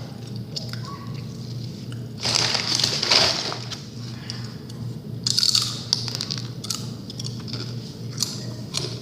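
Crunching and crackling in two bursts, one about two seconds in and another around five seconds in, with scattered sharp clicks between them over a steady low hum.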